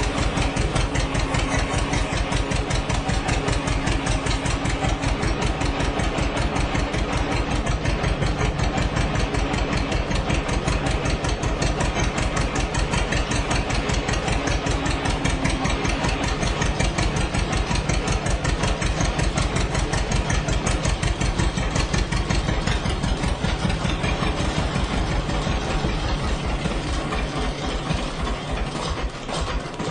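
Old 1959 tractor engine idling with a steady, even run of firing pulses. Its running becomes uneven and a little quieter over the last few seconds.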